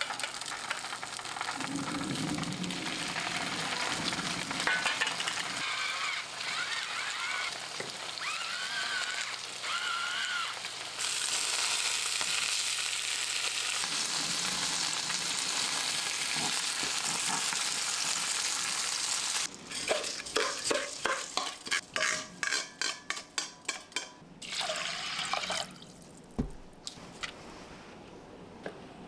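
Food sizzling as it fries in a pan, a steady hiss. Past the middle, a run of quick repeated clicks and taps, several a second, sounds over it, and then the sound dies down.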